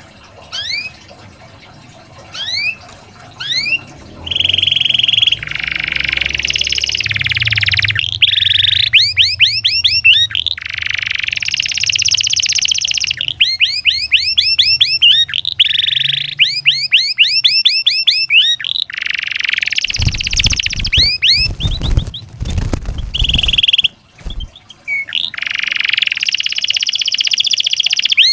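Domestic canary singing: fast runs of rising chirps and long rolled trills, repeated phrase after phrase. A brief low rumble cuts in about two-thirds of the way through.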